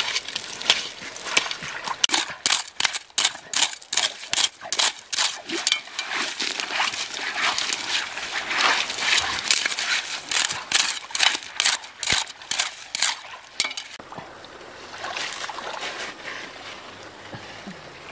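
River gravel and stones scraped and clattering as they are dug out by hand and with a machete blade, in rapid irregular strokes. The scraping stops about three-quarters of the way through, leaving a soft trickle of water.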